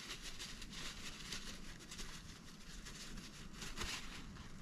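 Faint, irregular rustling and rubbing of a paper towel wiping grease off a small baitcasting reel part.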